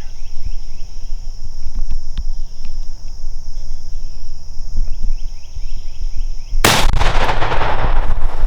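A single shotgun blast about two-thirds of the way in, with a long echoing tail. It is the shot that kills the approaching gobbler. Before it, a steady chorus of insects runs in the background.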